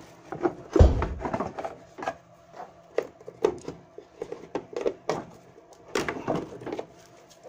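Clicks, knocks and rattles of a car's wiring harness and plastic connectors being tugged and worked loose by hand, with a heavier knock just under a second in.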